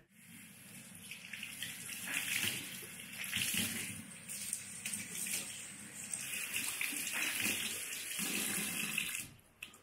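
Kitchen mixer tap running into a sink, the water splashing over wet cloth as it is rinsed by hand. The flow stops shortly before the end as the tap is turned off.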